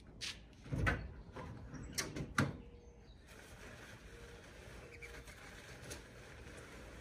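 Four knocks and thumps in the first two and a half seconds as things are shifted about in a pickup truck's bed, followed by a faint steady outdoor hiss.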